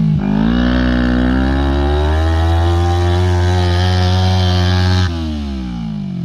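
Homemade go-kart's small engine revved up and held at high revs under load as the kart strains to climb out of a hole; about five seconds in the throttle is let off suddenly and the revs fall away.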